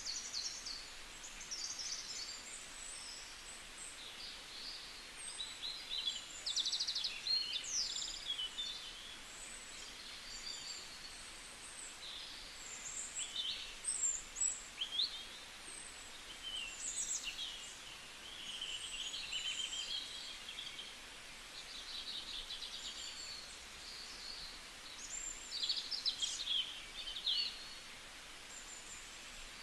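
Several small birds chirping and trilling in short, high calls throughout, over a faint steady background hiss.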